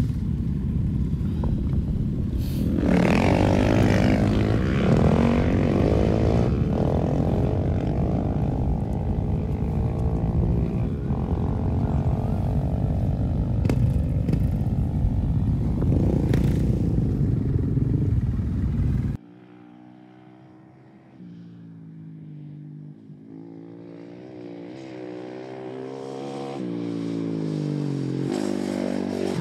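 Rally motorcycle engines running and revving, with heavy wind noise on the microphone. About two-thirds of the way through this cuts sharply to a single rally motorcycle riding through, its engine pitch rising and falling with the throttle and growing louder as it approaches.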